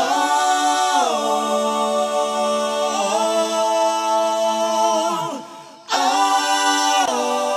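Stacked vocal tracks from a multitrack mix session playing back without instruments: several voices hold long chord notes, slide down together about a second in, fade out just after five seconds and come back about six seconds in.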